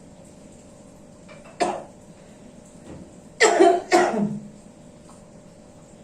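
A person coughing: one sharp cough about one and a half seconds in, then two harsh coughs close together a little past the middle. The cough belongs to a man being treated for a persistent, complicated cough.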